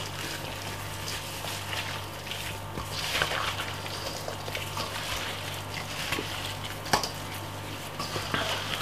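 Gloved hands squishing and rubbing a wet marinade into raw pork chops in a stainless steel bowl: irregular wet squelching and smearing. A steady low hum runs underneath, and a sharp tap sounds near the end.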